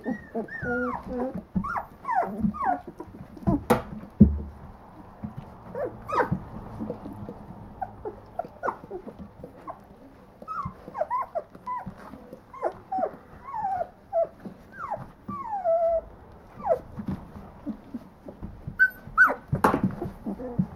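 A litter of two-week-old puppies whimpering and squealing, many short, high, wavering calls overlapping one another. There is a sharp knock about four seconds in and a few more near the end.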